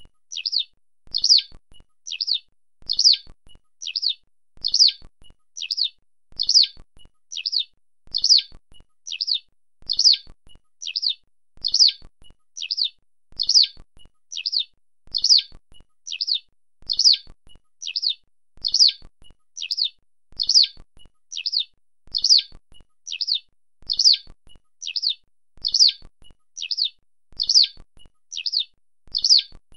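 Eurasian skylark calling: short, high chirping calls repeated evenly about once a second.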